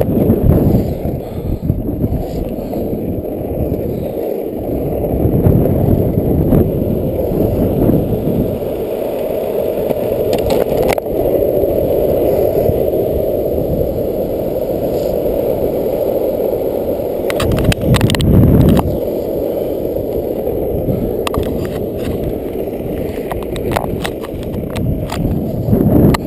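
Longboard wheels rolling fast over asphalt, a loud steady rumble. A run of sharp clicks and knocks comes about two-thirds of the way through, and more come near the end.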